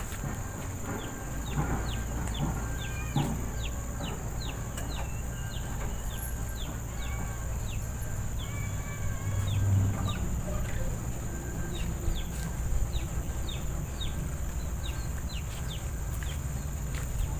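Birds chirping: many short, falling chirps, several a second, over a steady high-pitched insect drone.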